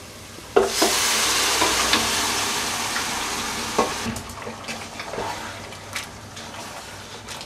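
Cooked duck pieces and their broth poured into a hot pan of fried masala, hitting the oil with a loud sizzle about half a second in that slowly dies down. A wooden spatula then stirs the pan, with a few knocks against it.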